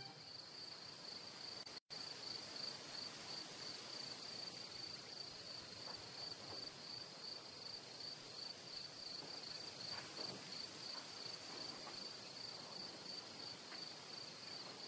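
Faint insect chirping: a high, steady, rapidly pulsing trill that cuts out briefly about two seconds in.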